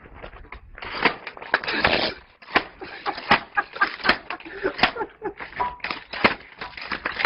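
A machine being run, giving an irregular clatter of sharp knocks, several a second.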